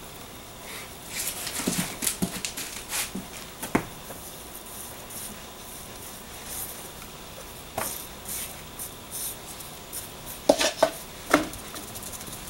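Wet concrete being tipped from a plastic cup and pressed by gloved hands into the edges of a countertop mold: irregular scraping, soft knocks and taps, with a cluster of louder knocks near the end.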